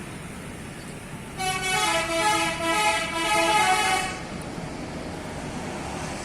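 Bus telolet horn playing a short tune of shifting notes for about three seconds, starting about a second and a half in, over steady traffic noise.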